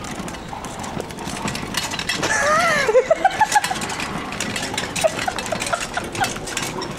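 Mobility scooter rolling over cobblestones with a steady clicking rattle. About two seconds in, a pitched call rises and falls, followed by a run of short, quick notes, and a few more such notes near the end.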